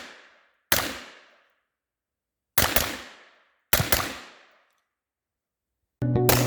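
AR-15 rifle shots: three single shots at uneven intervals, each a sharp crack that rings off in an echo for most of a second, with the fading tail of an earlier shot at the very start. Guitar and bass music starts near the end.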